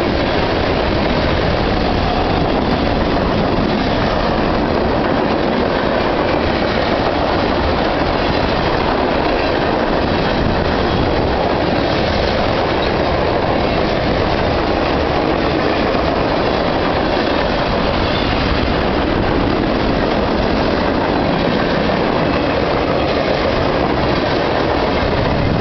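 Norfolk Southern freight train's cars rolling past, a steady, unbroken noise of wheels on rail with no horn sounding.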